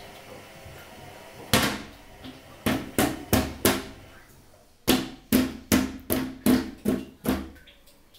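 A small child banging on a plastic toilet lid: a dozen sharp bangs in two quick runs, five and then seven, about two and a half a second.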